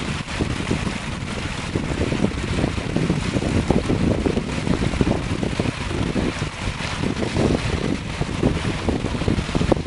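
Wind buffeting the microphone in gusts, over small waves washing onto the sand.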